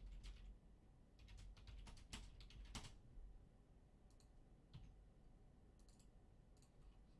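Faint, irregular clicking of a computer mouse and keyboard, in a small cluster a second or two in and then scattered, over a low steady hum.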